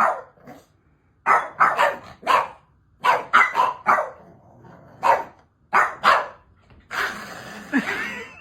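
A dog barking in short bursts, about a dozen barks in clusters of two or three, with a longer, noisier stretch near the end.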